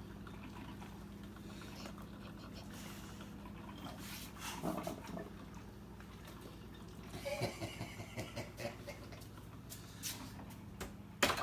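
Dog chewing a treat with the medication hidden in it, with soft wet smacks and clicks coming in scattered clusters.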